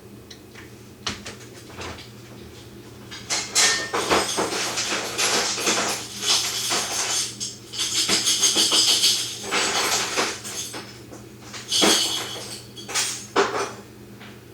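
Rummaging through loose metal plumbing fittings and parts: a run of jingling, clattering rattles for several seconds. A couple of separate sharp clicks follow near the end.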